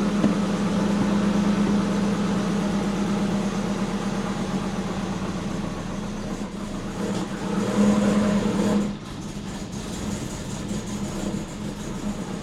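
Twin-turbo Subaru Forester's engine running with a steady hum; it swells briefly near eight seconds in, then drops away sharply about a second later, leaving a quieter steady running sound.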